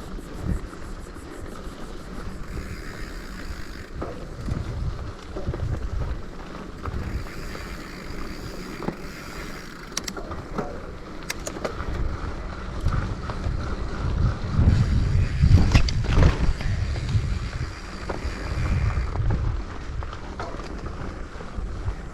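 Wind buffeting the microphone of a mountain bike rider on the move, in gusts that are heaviest past the middle, with scattered clicks and rattles from the bike on the rough trail.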